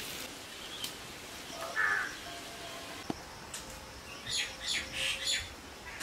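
Birds calling in the background: one short call about two seconds in, then a quick run of about four chirps near the end.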